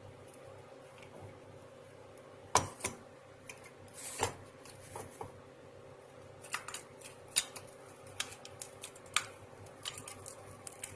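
Scattered light clicks and knocks of kitchen utensils being handled, with two sharper knocks about two and a half and four seconds in, over a faint steady hum.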